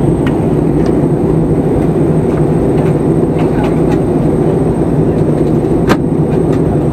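Steady cabin noise of a jet airliner in flight: an even, low roar of engines and airflow heard from inside the cabin, with a small click about six seconds in.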